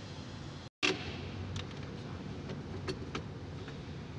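Steady low background rumble with a few light clicks and knocks of hand tools and parts on the forklift engine. The sound drops out for an instant about a second in.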